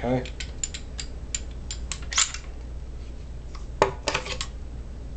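SIG Sauer P229 pistol being field-stripped: a string of sharp metal clicks and clacks as the slide is worked and taken forward off the frame, loudest about two seconds in and again near four seconds.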